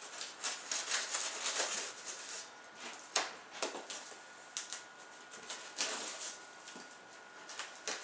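Pocket knife slitting the packing tape along the seams of a cardboard box: irregular scratchy scrapes and light clicks as the blade is drawn along the cardboard.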